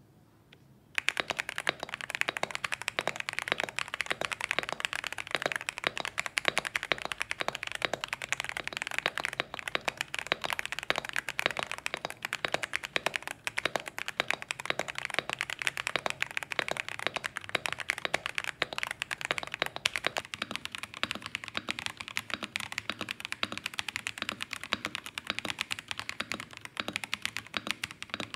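Fast typing on a KZZI K75 Pro 75% mechanical keyboard with stock Moment switches, starting about a second in: a dense, continuous run of key clacks. First comes the modded board, with lubed stabilizers and the tempest tape mod, giving a poppy, crispy sound; about twenty seconds in it changes to the unmodded stock board, which sounds less bright.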